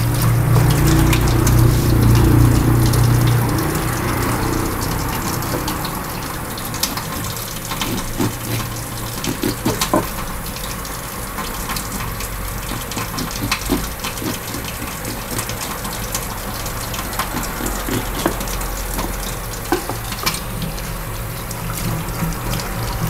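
Tap water running into a sink, louder in the first few seconds, with scattered clicks and scrapes as a small knife scrapes the blood out along a snakehead fish's backbone.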